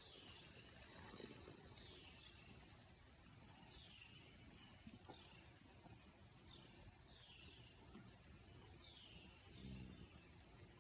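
Faint outdoor bird calls: a short, high, falling note repeated every second or so over quiet rural background noise.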